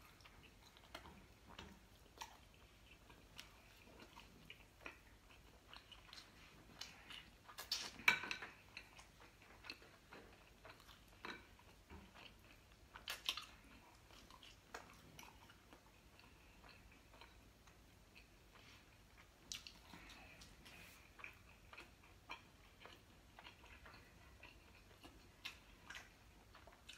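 A person chewing food close to the microphone: faint, irregular wet mouth clicks and smacks, with louder bites about eight and thirteen seconds in.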